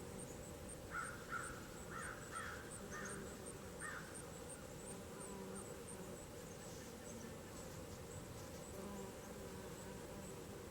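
Outdoor summer ambience: an insect ticking steadily at a high pitch, about four times a second, while a bird gives about six short calls in quick succession between about one and four seconds in.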